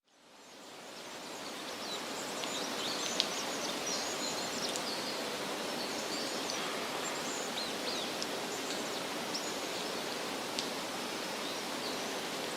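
Steady rushing of a waterfall, fading in over the first couple of seconds, with faint high chirps and a couple of small clicks on top.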